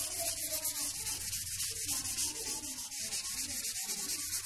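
A chalkboard eraser rubbing chalk off a blackboard in quick, even back-and-forth strokes, a steady scratchy hiss.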